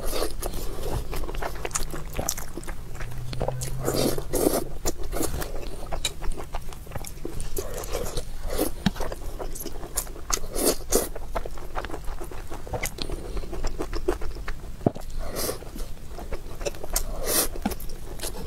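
Close-miked chewing of soft rice and scrambled egg, with many irregular wet mouth clicks and smacks, and wooden chopsticks scraping and tapping in the bowl as the next mouthful is gathered.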